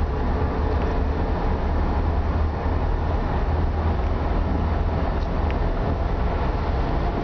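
Steady low rumble of a moving vehicle: engine and road noise heard from on board.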